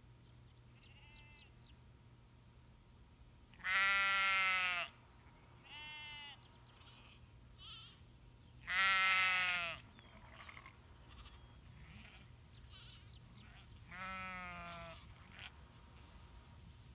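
Sheep bleating: a few long bleats, two of them loud, with shorter, fainter bleats between.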